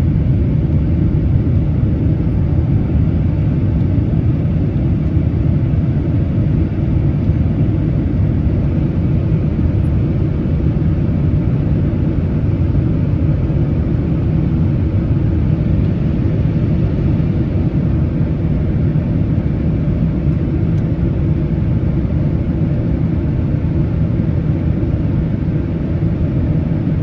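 Steady, loud rumble of a Boeing 767-300ER's jet engines and rushing air, heard inside the passenger cabin during takeoff.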